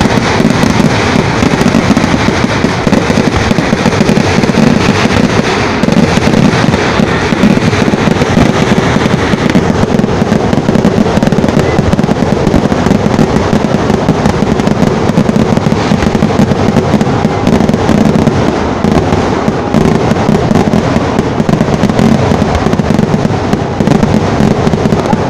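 Fireworks going off in a dense, continuous crackling barrage, loud and without a pause.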